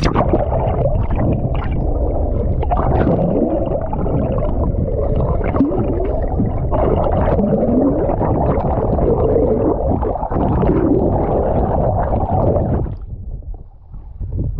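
Underwater sound from a camera held below the sea surface: a loud, muffled rushing and gurgling of water with bubbling and wavering pitch glides. It falls away about 13 seconds in as the camera comes back up out of the water.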